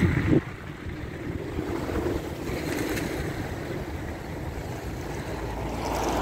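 Outdoor street ambience: a steady, even rumble of distant traffic with wind noise on the phone's microphone.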